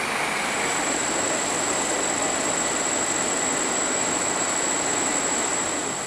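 Steady engine and road noise inside a moving Volvo B10BLE CNG bus, with a thin high-pitched whine that sets in about half a second in.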